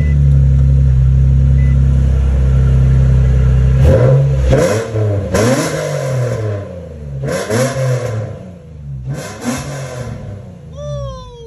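Infiniti G35's 3.5-litre V6 running through a freshly installed Spec-D cat-back exhaust. It idles steadily, then from about four seconds in it is revved in several short blips, the pitch rising and falling with each.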